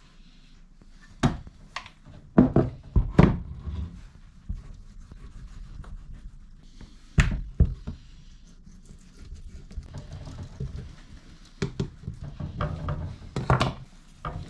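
A knife scraping and cutting flesh from a moose skull plate between the antlers, with scattered sharp knocks and thunks, several in quick succession about two to three seconds in and again near the end.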